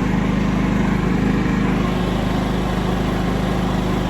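Small motor vehicle's engine running steadily at constant speed.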